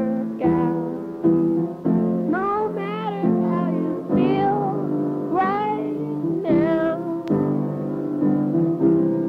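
Music: a song with a singing voice over steady sustained chords, the voice coming in about four phrases that swoop up in pitch and waver.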